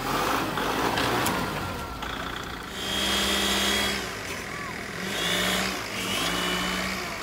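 Kubota L6060 compact tractor's diesel engine running while its front loader lifts a heavy log on a chain. The engine note steadies and works harder in three spells of about a second each as the loader takes the load. A rough scraping noise fills the first two seconds.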